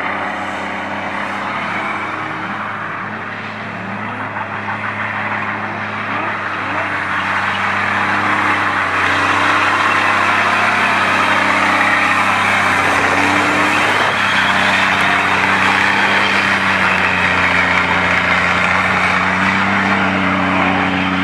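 Scania 124L 420 truck's 12-litre inline-six diesel held at high revs in a burnout, with the rear drive tyres spinning on the asphalt. The tyre noise grows louder about eight seconds in and stays loud, over the steady drone of the engine.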